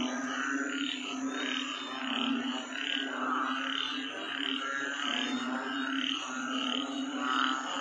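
Banded bullfrog (Asian painted frog) calling: a low, long call that runs on with only brief breaks, over a higher pulsing about twice a second.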